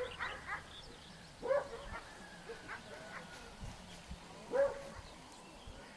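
A dog giving short barks, three of them: one at the start, one about a second and a half in, and one about four and a half seconds in.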